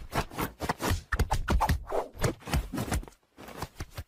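Quick, irregular knocking and rattling of a wooden whack-a-mole cat toy as a kitten bats at it, dying down after about three seconds.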